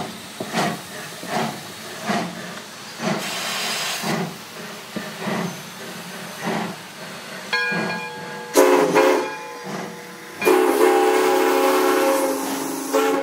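Steam locomotive moving slowly under steam, its exhaust chuffing about one and a half times a second over a steady hiss of steam. About two-thirds of the way in its chime whistle sounds a short blast, then a long blast near the end.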